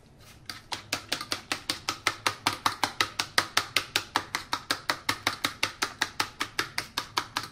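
A fork beating eggs and water in a plate, its tines tapping the plate in a fast, even rhythm of about five or six strokes a second, starting about half a second in.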